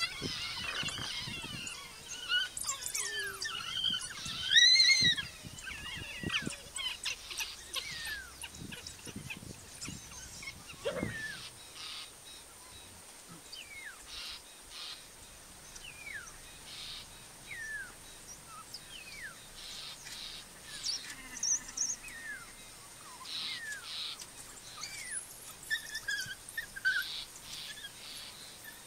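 African wild dogs giving their high-pitched, bird-like twittering calls, the excited social chatter of a pack gathered together. The chirps come thick and fast at first, with a louder rising-and-falling call about five seconds in, then thin out to single falling chirps every second or two.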